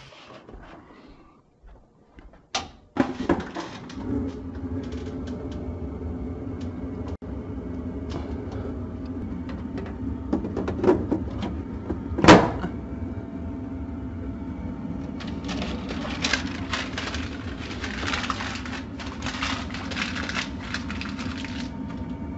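Forced-air furnace switched on with a click about three seconds in, its blower then running with a steady hum. Over the hum come plastic handling knocks and one sharp snap about halfway through as the Aprilaire 550 humidifier's plastic cover is fitted back on.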